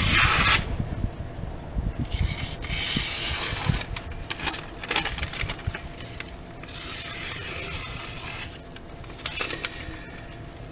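Knife blade drawn in long freehand strokes across the Washboard sharpening system's abrasive surface, a rasping hiss for each stroke. There are about five strokes, each lasting one to two and a half seconds, with short pauses between them.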